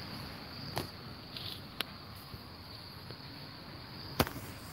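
Crickets chirring steadily, with a few short sharp clicks over them, the loudest near the end.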